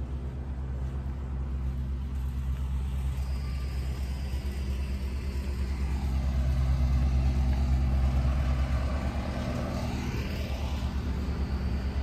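A steady low machine hum, like a running engine or motor. A broader rushing sound swells up about halfway through and fades away near the end.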